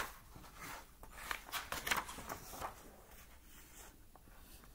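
A page of a hardcover picture book being turned: a sharp paper flap at the start, then a spell of crackly paper rustling as the new spread is flattened down.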